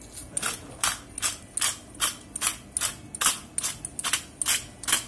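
Pepper mill being twisted, grinding black peppercorns in short, even grinding strokes, about three a second.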